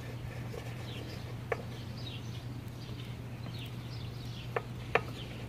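Hand tool clicking against the mower's carburetor bolts three times, sharp and short, while faint birds chirp over a steady low hum.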